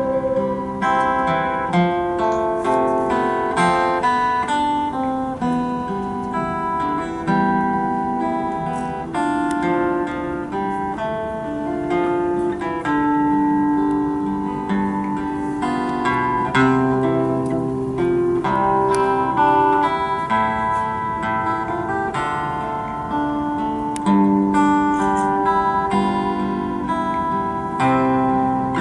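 Acoustic guitar music, plucked and strummed chords with a steady run of notes.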